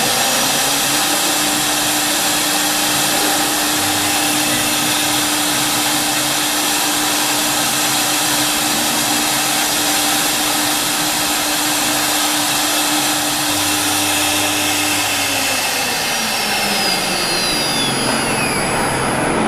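HG-1325 wood CNC router's high-speed spindle running after the program is started, a steady high whine over a rushing hiss. The whine climbs to speed in the first second, holds, then from about fifteen seconds in slides down in pitch as the spindle slows.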